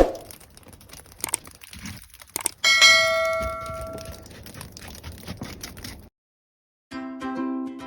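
A single bell-like ding about two and a half seconds in, ringing out and fading over a second or so. Near the end, after a brief silence, plucked-string music starts.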